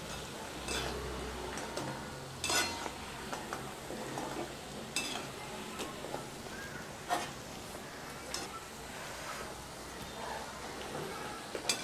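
Mathri slow-frying in hot oil in a steel kadai, a steady sizzle. A slotted steel spoon scrapes and clinks against the pan every couple of seconds as the pieces are stirred and turned.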